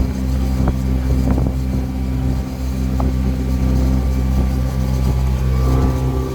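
Cruise boat's engine running at a steady pace, a constant low drone.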